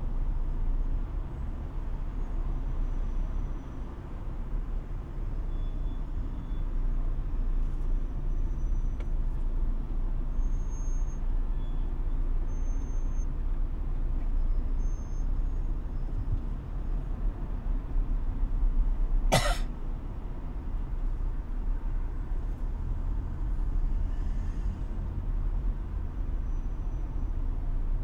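Car driving in city traffic: a steady low rumble of engine and road noise, with one sharp click or knock about two-thirds of the way through.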